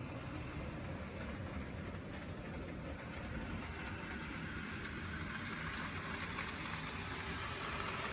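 HO scale Rivarossi IHC 2-8-2 Mikado model steam locomotive running on the layout track: a steady whir from its electric motor and gears, with the wheels rolling on the rails. It grows a little louder over the second half.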